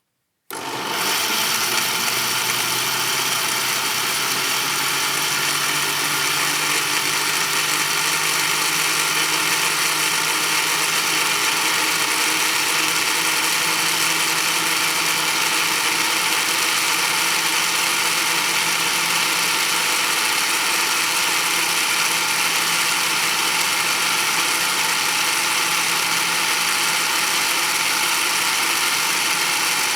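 Electric kitchen blender switched on at a single speed: the motor starts about half a second in, comes up to speed within a second, then runs at a steady, dense whine with many even tones.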